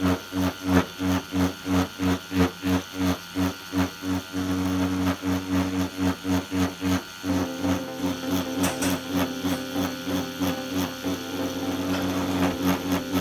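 CNC P6 adjustable-stroke tattoo pen buzzing with a 3-round liner needle. Its hum pulses about three times a second for the first seven seconds, then runs steadily.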